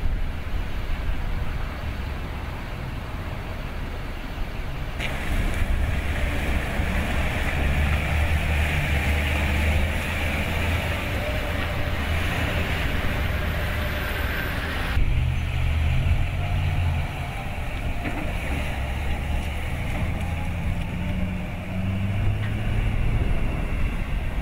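Engine of a medium-duty flatbed truck carrying a mobile radar dome, running with a low rumble and then pulling away, its pitch rising and falling as it drives off. The sound changes abruptly about five and fifteen seconds in, where the footage is cut.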